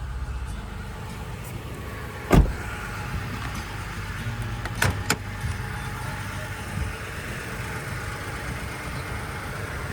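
2019 Toyota Tacoma pickup's engine idling with a steady low hum, with a loud knock about two and a half seconds in and two quick clicks around five seconds.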